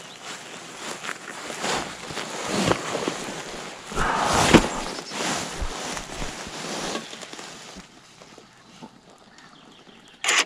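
Irregular rustling and crunching, loudest about four seconds in and dying down over the last couple of seconds.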